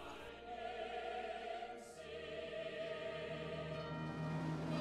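Quiet background music of long held chords, with a change of chord about two seconds in.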